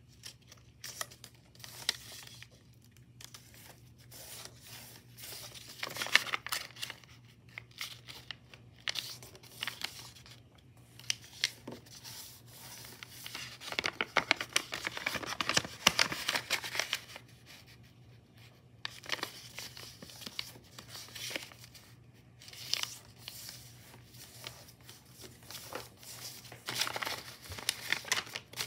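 A sheet of white paper being folded and creased by hand into pleats: the paper rustles, slides and crinkles in irregular bursts, busiest about halfway through.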